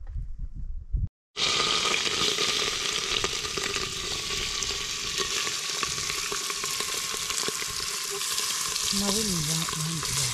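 Food sizzling steadily in a blackened pot over an open wood fire, a continuous hiss with fine crackles that starts abruptly about a second in. Near the end a low, wavering voice-like sound joins it.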